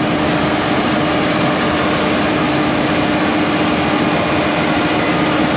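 International Harvester 1480 Axial-Flow combine running while harvesting wheat, heard from inside the cab: a steady, loud machine noise with a constant low hum.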